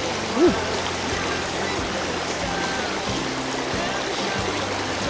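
Fast river current rushing over rocks in a riffle, a steady wash of water noise, with faint background music under it.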